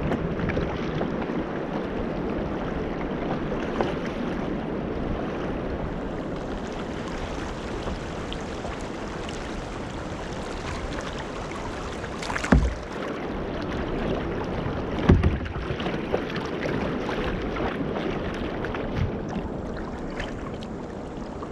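Choppy river water rushing and splashing steadily around a kayak moving through a riffle. A little past halfway there are two brief thumps a few seconds apart.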